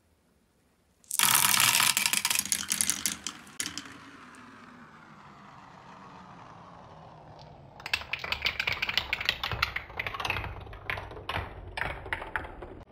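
A handful of plastic marbles running through a wooden Quadrilla marble run: a sudden loud clatter about a second in as they pour into the tube, then a steady rolling rumble as they circle the wooden spiral slopes, then quick clicking and clacking as they knock along the wooden rails and drop through.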